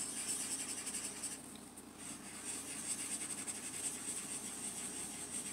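Felt-tip marker scratching on paper as a small eye shape is coloured in: two spells of scribbling with a short pause about a second and a half in.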